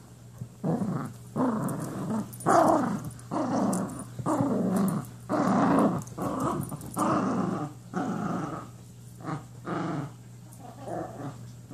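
Small poodle growling in a string of short rough growls, about one a second, growing weaker toward the end.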